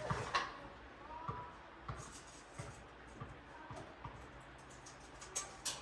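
Scattered light knocks and clicks at uneven intervals, a few of them louder near the end, like small parts or tools being handled.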